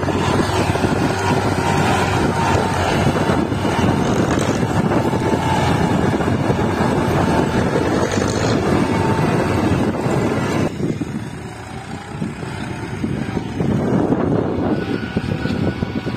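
Massey Ferguson tractor's diesel engine running under load as it pulls a trailer heaped with soil, with wind on the microphone. The sound drops for a couple of seconds a little past the middle, then comes back up.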